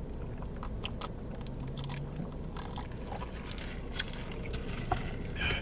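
Close-up chewing of sauced chicken wings, heard as a scatter of small faint clicks.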